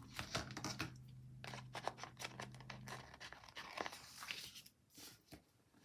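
Paper planner stickers being peeled from their sheet and handled: a run of small crinkles and quick ticks, with a faint low hum that stops about three seconds in.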